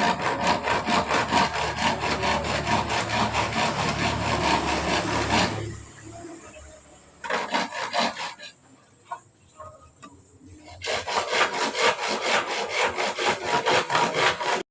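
A hand tool worked back and forth on wood, shaping a wooden peg, in quick regular strokes several a second. The strokes stop for about five seconds in the middle, with a few scattered knocks, then start again.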